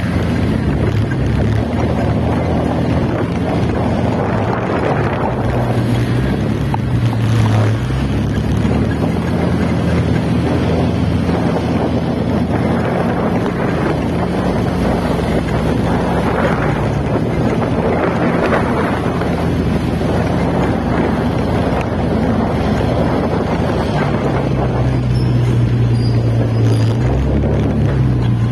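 Motorcycle engine running while riding in traffic, its low drone rising and falling in pitch as the throttle changes, with wind rushing over the microphone.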